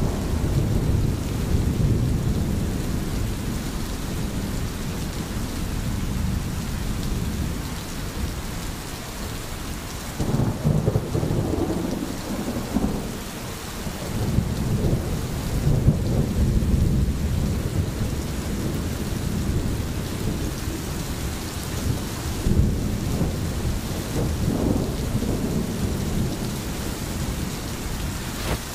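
Thunder rumbling almost without pause in a thunderstorm, swelling in several louder surges, over the steady hiss of falling rain.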